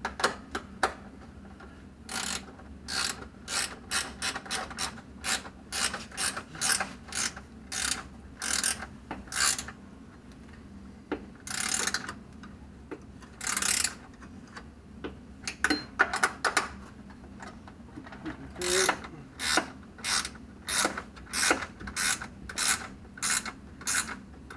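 Hand socket ratchet worked back and forth in quick short strokes, about two clicking bursts a second with a few brief pauses, tightening running-board mounting bolts.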